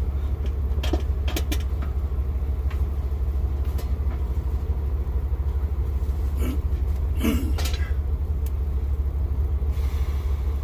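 Steady low rumble of an idling truck engine, with scattered short clicks and knocks as cutters work at a tough beef bone.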